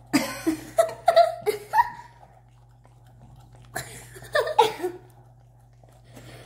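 Two bursts of giggling laughter, near the start and about four seconds in, while a French Bulldog/Boston Terrier mix licks and laps at whipped cream in a paper cup held to its muzzle.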